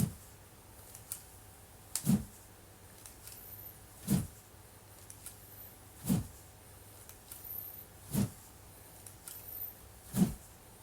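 Wooden practice sword (bokken) swung through the air in steady practice swings, a short swish about every two seconds.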